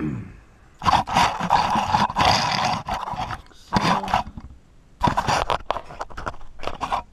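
Bench vise being cranked tight on a chain: the steel screw and handle give a loud scraping, grinding noise in two stretches of bursts, with a short pause about four seconds in.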